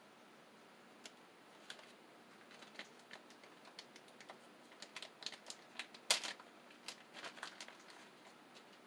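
Scattered small clicks and taps of hands handling wires and small plastic parts, busier in the second half, with one louder click about six seconds in.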